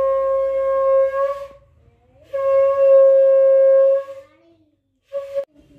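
Conch shell (shankha) blown in three blasts on one steady note: a long blast ending about a second and a half in, a second long blast, and a short one near the end.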